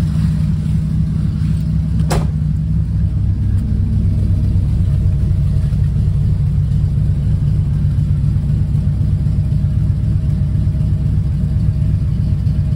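Triumph Stag's 3.0-litre V8 running at a steady idle just after a cold start, choke still pulled out. A single sharp click about two seconds in.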